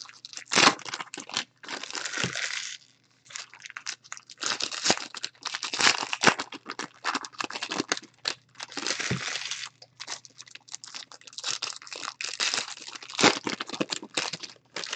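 Foil trading-card pack wrappers crinkling and being torn open in irregular bursts, with a few sharp knocks from cards being handled.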